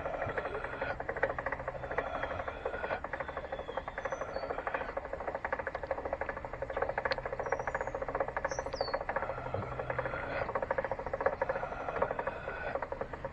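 Height-adjustment crank of a Delta 22-540 portable planer being turned by hand to lower the cutterhead: a continuous rapid fine clicking with a few brief pauses.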